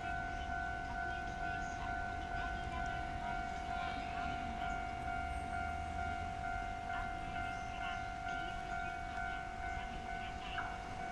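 Railway level crossing warning alarm sounding steadily with the barriers down: the signal that a train is approaching.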